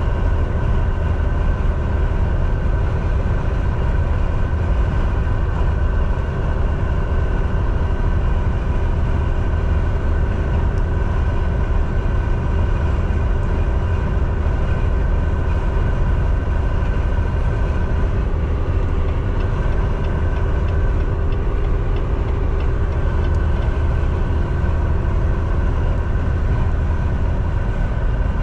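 Semi-truck driving at highway speed: a steady, unbroken drone of engine and road noise, with several steady tones above it.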